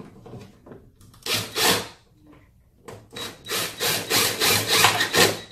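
Cordless Ridgid drill/driver driving a screw into an MDF panel: a short run about a second in, then a longer stretch of pulsing runs from about three seconds in.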